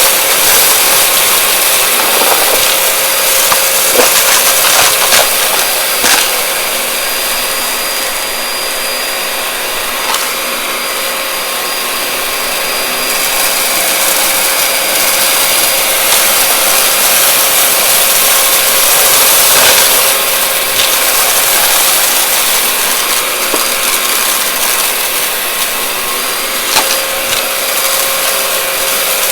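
A vacuum cleaner running steadily with a motor whine, sucking up crunchy debris: a crackling rush with scattered sharp clicks and pops as bits rattle up the nozzle.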